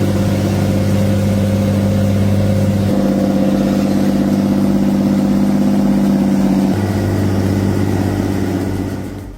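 Diesel engine of a Komatsu 901TX forwarder running steadily under load, its tone changing abruptly twice, then fading out near the end.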